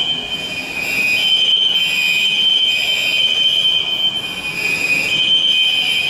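Building fire alarm sounding a loud, high-pitched steady electronic tone in long pulses, breaking off briefly about a second in and again near the end.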